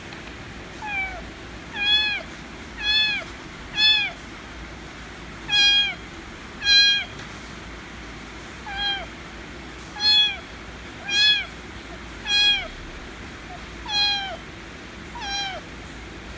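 Kitten meowing loudly over and over: about a dozen high meows, each rising and then sliding down in pitch at the end, coming roughly once a second with a couple of short pauses.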